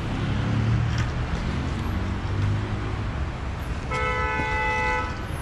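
Steady traffic and road noise, with a vehicle horn sounding once for about a second, about four seconds in.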